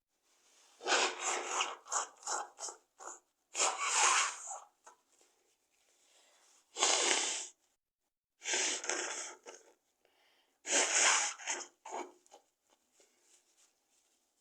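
A woman's forceful, wet sneezes, set off by tickling her nose with a tissue: a run of short broken bursts, then four loud sneezes a few seconds apart, tailing off into smaller breathy sounds.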